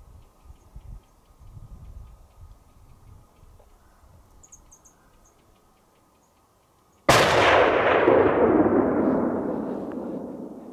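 A single 7mm Magnum rifle shot about seven seconds in, its report rolling on and fading over about three seconds as it echoes.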